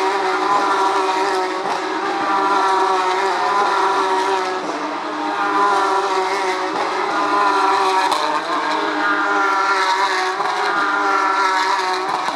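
Several Porsche 911 GT3 Cup race cars' flat-six engines running at high revs together, their notes overlapping in a continuous racing howl that swells and eases slightly as the cars go by.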